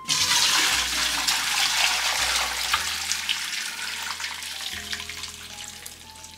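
Vegetable broth and cooked scraps poured from a stainless steel pot through a mesh strainer into a metal bowl: a steady splashing pour that starts suddenly and gradually tapers off.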